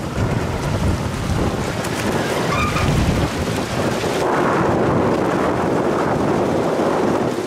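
Wind rumbling on the microphone over choppy waves sloshing against the dock and its pilings; the rushing fills out about four seconds in.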